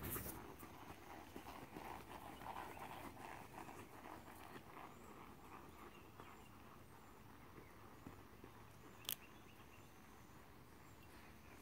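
Hoofbeats of a Thoroughbred horse moving fast on a sand arena, loudest as it passes close by and fading over the first few seconds as it moves away. A single sharp click about nine seconds in.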